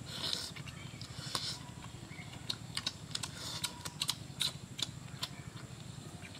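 Close-up chewing of a barbecued chicken leg: irregular wet clicks, smacks and short crunches as the meat is bitten and chewed.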